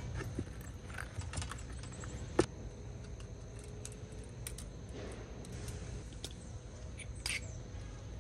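Scattered light clicks and knocks of small objects being handled, the sharpest about two and a half seconds in, over a low steady rumble and a faint steady high tone.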